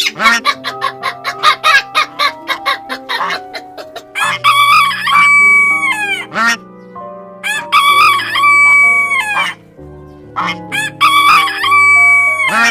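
A rooster crowing three times, each crow a long call that holds and then drops at the end, over background music. Before the crows comes a quick run of clicks.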